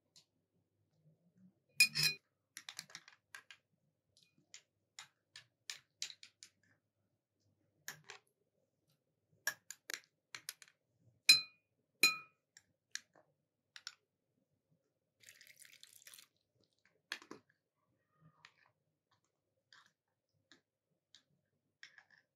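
A spoon clinking against glass jars and small glass dishes on a metal tray while pickles are spooned out: scattered light clicks and taps, with a few louder ringing clinks, about two seconds in and twice more around the middle.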